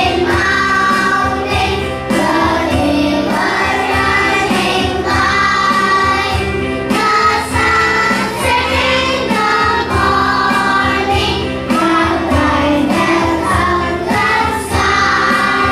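A group of young children singing a song together into microphones.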